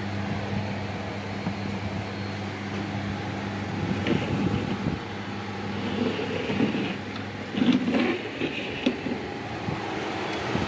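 A 2014 Bajaj air cooler running after repair: its replaced fan motor and submersible water pump give a steady mains hum. Irregular knocks and rattles come in from about four seconds in.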